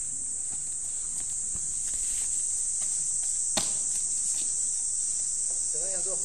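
Steady, high-pitched insect chorus, with one sharp knock about three and a half seconds in.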